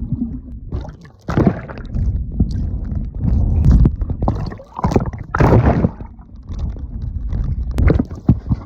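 Ocean water splashing and sloshing in irregular surges, with wind rumbling on the microphone.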